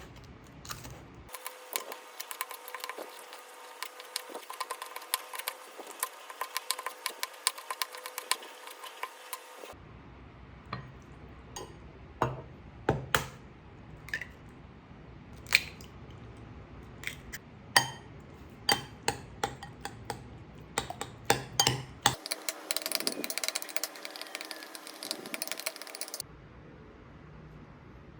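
Light clinks and taps of dishes and utensils, many sharp strokes at an uneven pace, broken up by abrupt cuts between short clips.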